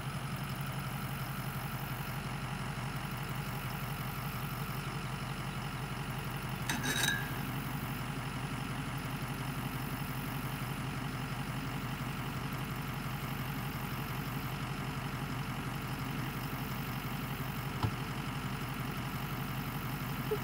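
Pickup truck engine idling steadily. There is a brief metallic clank about seven seconds in.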